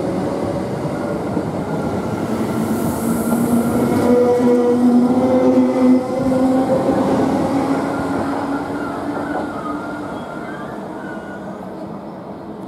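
A British Rail Class 321 electric multiple unit pulling away: its traction motors whine in several steady tones that rise slowly in pitch as it gathers speed, loudest about five seconds in, then the sound gradually fades as it draws off.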